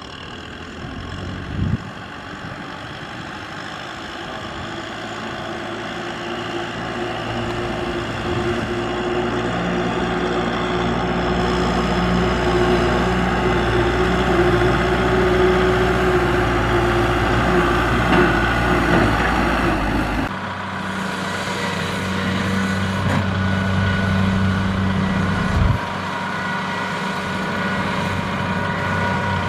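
Kubota M6040SU tractor's diesel engine running steadily as it pulls a loaded trailer across the field, growing louder as it comes closer. About two-thirds of the way through, the sound changes to a rice combine harvester's engine running, with a single knock shortly after.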